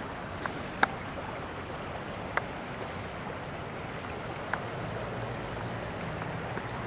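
Flooded river current rushing past below a footbridge, a steady wash of noise, broken by three sharp clicks about a second, two and a half seconds and four and a half seconds in.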